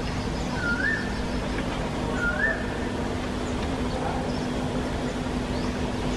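A bird repeating a short, rising whistled call, twice in the first three seconds, over a steady background hiss and a low steady hum.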